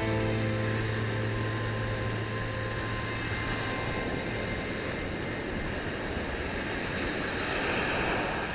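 Ocean surf breaking and washing up a beach, a steady rushing noise. The tail of background music fades out in the first couple of seconds.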